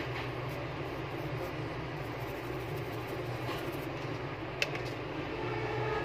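Steady low hum with a hiss from background machinery, and one short sharp click about three-quarters of the way through.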